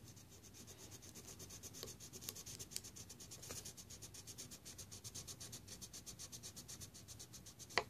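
Rapid back-and-forth scribbling, something being coloured in by hand with a steady run of short, faint strokes, several a second. A single sharp click near the end.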